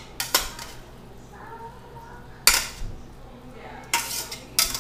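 Metal tongs clanking and scraping against a stainless steel sauté pan as cooked vegetables are pushed out into a bowl: a few sharp clanks, the loudest about two and a half seconds in.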